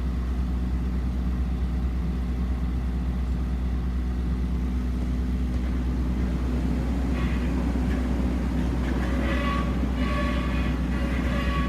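Soilmec SR-series hydraulic drilling rig running, a steady low machine drone. From about seven seconds in, higher-pitched sounds come and go over it.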